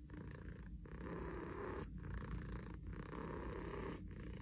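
Domestic cat purring while its head is brushed. The purr is quiet and breaks briefly about once a second with each breath.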